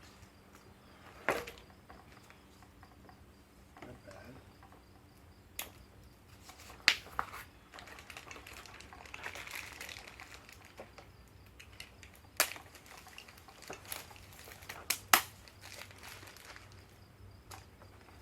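Bike parts and packaging being handled during an unboxing: a few sharp, scattered clicks and knocks, with a short stretch of packaging rustling about halfway through.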